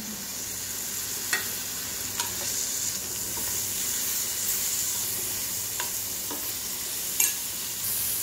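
Pieces of soaked dried seer fish frying in hot oil with onions in a metal kadai: a steady sizzle just after the fish goes in. A metal spoon stirring clinks against the pan about four times.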